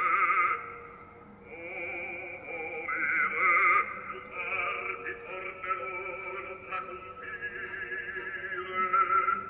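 Music played from a CD player: a high melody with a strong, warbling vibrato, in the manner of operatic singing, over a lower line, changing note every second or so.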